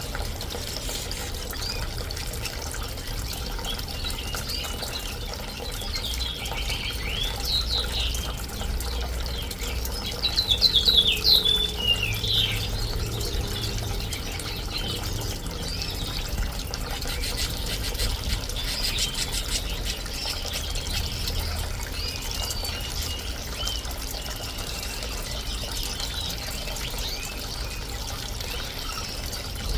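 Small bird-bath fountain trickling steadily, with canaries and finches chirping in short bursts, loudest about ten to twelve seconds in.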